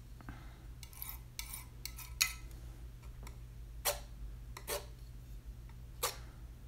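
Steel palette knife scraped across watercolour paper in several short, irregularly spaced strokes, lifting paint to make a bark texture.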